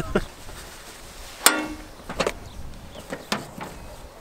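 A few sharp, irregular metal clicks and knocks, the loudest about a second and a half in with a brief ring. They come from hand work on the spline coupling between the clutch and the gearbox of a Yanmar mini-tractor, which is being greased through its fittings.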